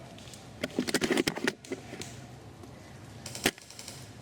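Spring-powered airsoft sniper rifle: a quick run of clicks and rattles about a second in, then a single sharp shot about three and a half seconds in.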